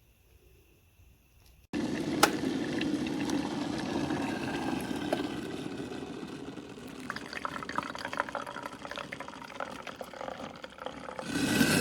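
Water running and splashing, starting abruptly about two seconds in and slowly easing off, with scattered small clicks, then a louder surge near the end that cuts off suddenly.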